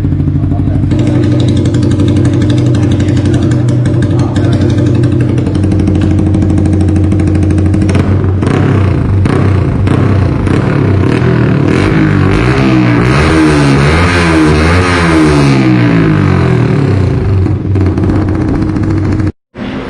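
Yamaha R15 V3's single-cylinder engine running loud through an aftermarket exhaust. It idles steadily at first, is blipped several times from about eight seconds in, then revs up and down quickly a few times. The sound cuts off abruptly near the end.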